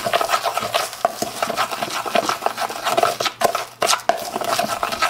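A spoon stirring a dry mix of flour, spices and panko breadcrumbs in a plastic container: continuous scratchy scraping made of many quick, uneven strokes.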